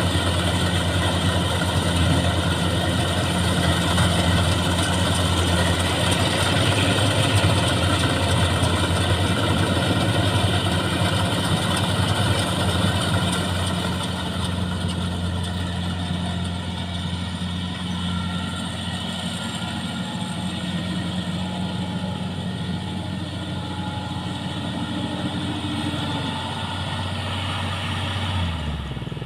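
Rice combine harvester's engine running steadily with the clatter of the machine over it; the higher clatter eases off about halfway, and the engine note drops just before the end.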